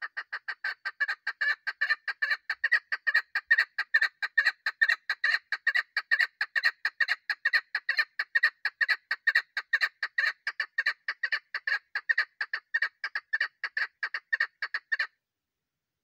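Female chukar partridge giving a long, fast series of clucking calls, about four or five a second, which cuts off abruptly near the end. This is the hen's call that hunters use to lure cock birds.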